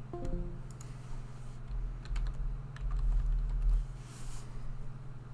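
Scattered keystrokes and clicks on a computer keyboard, over a steady low hum, with a low rumble that swells between about two and four seconds in.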